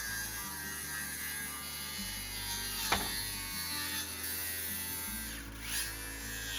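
Background music over roof-sheathing work: a single sharp knock about three seconds in, and a brief power-tool whir near the end.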